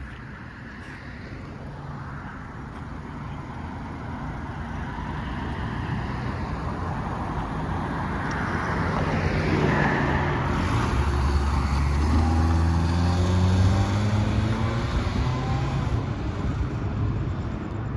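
A car driving by, its tyre and engine noise growing louder to a peak a little past the middle. The engine note climbs as it accelerates, then the sound eases off near the end.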